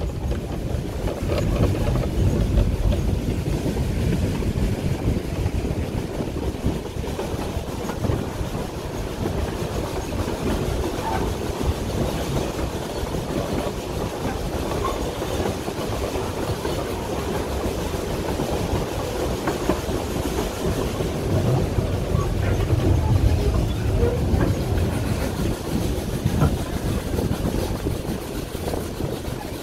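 Puffing Billy narrow-gauge steam train carriage rolling along the track: a steady rumble and rattle of wheels on rails heard from aboard.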